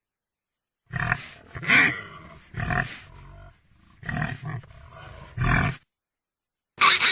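Pig grunting: a run of short, rough grunts for about five seconds, then, after a pause, a loud high-pitched squeal starting near the end.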